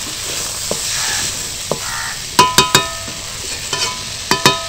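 Ridge gourd and moong dal sizzling steadily as they fry in a pan with salt and turmeric, while being stirred. Twice, about halfway and again near the end, the spatula knocks against the pan in a few quick ringing clinks.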